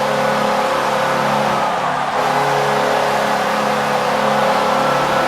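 Buffalo Sabres arena goal horn sounding one long, steady chord of several low tones over a cheering crowd, marking a goal.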